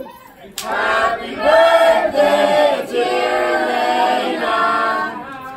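A group of men and women singing a birthday song together to candles on a cake, after a short break about half a second in.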